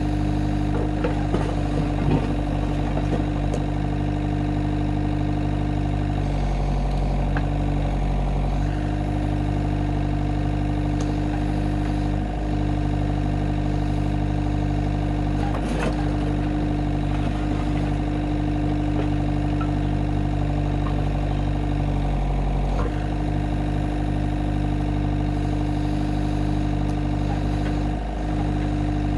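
Avant 650i compact loader's diesel engine running steadily while driving the hydraulics of its Digger 260 backhoe attachment as it digs soil. The engine note shifts a few times under changing load, with a few short clunks from the digger's bucket and boom.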